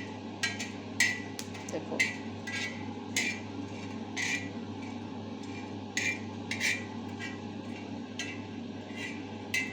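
Whole cloves being stirred and dry-roasted on a tava: a utensil scraping and clinking against the griddle in short irregular strokes, about one every half second to a second, over a steady low hum.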